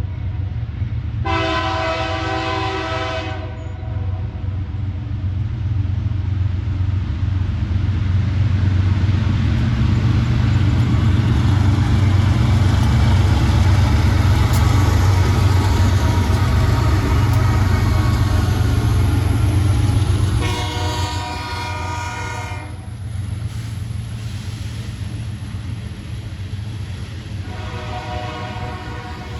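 A CSX diesel freight locomotive passing close with a heavy low rumble, loudest through the middle. Its air horn sounds a two-second blast about a second in, another about twenty seconds in, and a third near the end.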